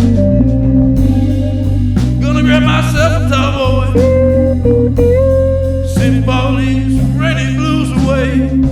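Chicago blues music: a guitar lead with wavering, sliding notes over a bass line and a steady beat.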